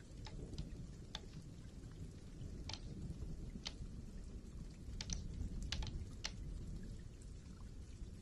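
Keys of a keyboard tapped one at a time in ASMR fashion: about ten irregular, sharp clicks, several close together about five seconds in, over a steady low rumble.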